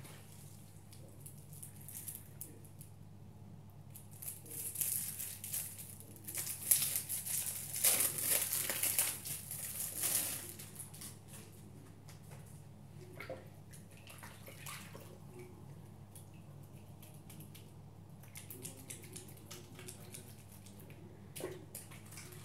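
Wet bath sponges pressed and squeezed in a sink of water, squelching and splashing, loudest from a few seconds in to about halfway. Later, wet soapy hands rub together. A steady low hum runs underneath.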